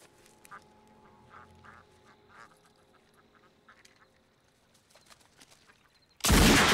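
Ducks quacking faintly a few times, then about six seconds in a single loud gunshot from a homemade plastic/resin composite zip gun that cuts across everything.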